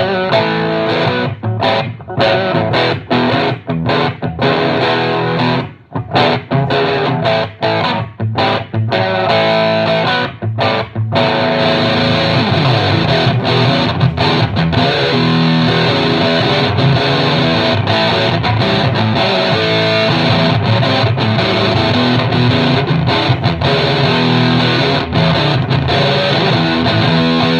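Suhr Modern electric guitar played through a PLX FUMM fuzz pedal into an Ampeg VH-140C amp and two Thiele cabinets, a thick fuzzed tone. Short chopped chords and riffs with brief stops for about the first eleven seconds, then continuous sustained playing.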